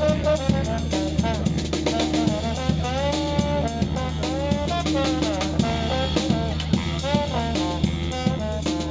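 Live band playing a tune: a melody line over a steady drum-kit beat.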